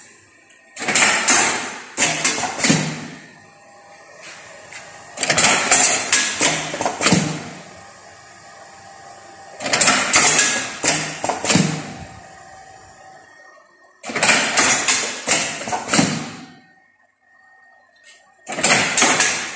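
Automatic lead-bullet casting machine with a carousel of eight double moulds working through its cycle: a burst of mechanical clacks and knocks lasting about two seconds, repeating about every four and a half seconds, five times. A faint steady whine can be heard between the bursts.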